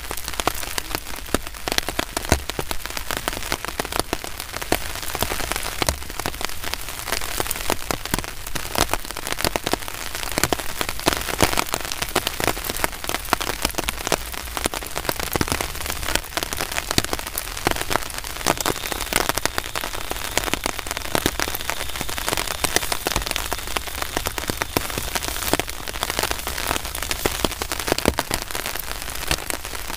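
Heavy rain falling steadily, a dense patter of many sharp, irregular drop impacts over a continuous hiss.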